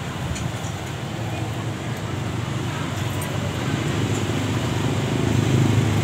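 Steady low engine rumble, growing slightly louder toward the end.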